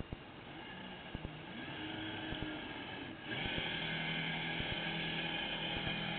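Drive motor of a 78-inch radio-controlled Gato submarine model, running with a steady whine picked up by the diving camera mounted on its deck. It grows louder over the first two seconds, dips briefly, then jumps louder about three seconds in. A few light knocks are scattered through it.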